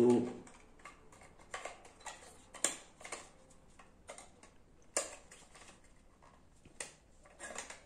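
Light clicks and taps of a hand-held polyresin model building being turned and fitted into place, coming at irregular intervals.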